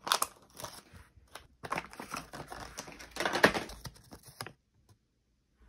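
Crinkling and crackling of a clear plastic blister pack being handled, then a slip of paper being unfolded: a busy run of small crackles and clicks, loudest near the end, that cuts off suddenly about four and a half seconds in.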